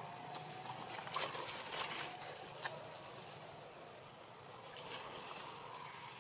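Quiet outdoor ambience with a handful of soft clicks and crackles, like dry leaves being rustled, between about one and three seconds in.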